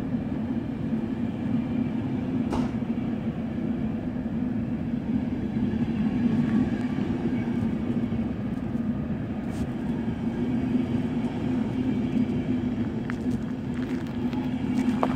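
Locomotive-hauled passenger coaches rolling past along a platform: a steady rumble of wheels on rails with a low hum, and a few faint clicks, the loudest near the end.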